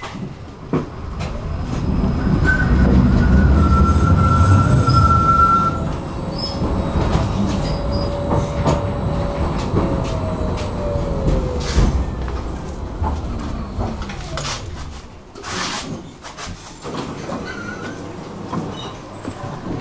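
Tram running on its rails with a loud low rumble and a high wheel squeal a few seconds in. A tone falls in pitch around ten seconds in, and the rumble grows quieter in the last few seconds.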